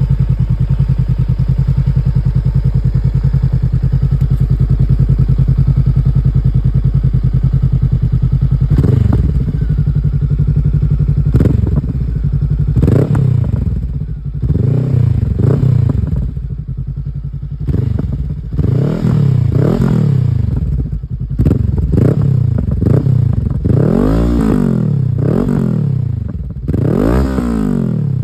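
Honda CB500X parallel-twin engine breathing through a Scorpion aftermarket exhaust, idling steadily, then revved in a series of short throttle blips from about nine seconds in, each rising and falling in pitch.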